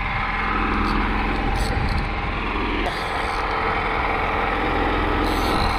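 A small engine running steadily with an even hum.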